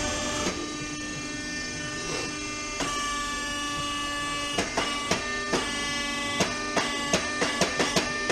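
Huth hydraulic exhaust tube bender running with a steady, many-toned hum. From about halfway in, a string of sharp clicks comes closer and closer together toward the end.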